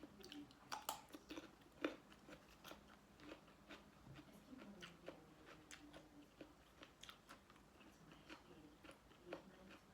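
A person chewing and biting into spicy seafood papaya salad with shrimp and squid: a run of close, irregular crunches and mouth clicks, the loudest bites about one and two seconds in.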